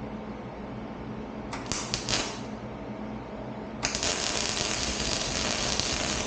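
Arc welder crackling as it welds exhaust pipe steel: a short burst of welding about one and a half seconds in, then a longer unbroken weld that starts near four seconds in. A steady low hum runs underneath.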